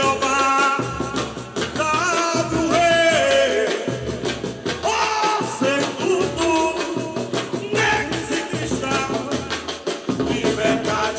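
Live Afro-Brazilian bloco afro band playing samba-reggae: a lead vocalist singing a melody over a drum ensemble with a steady pulse of deep bass drums, heard through a PA.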